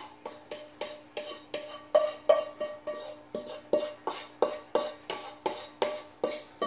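Wooden spatula scraping and knocking sautéed greens out of a wok onto a plate, about three knocks a second, each ringing briefly off the pan. A faint steady hum lies underneath.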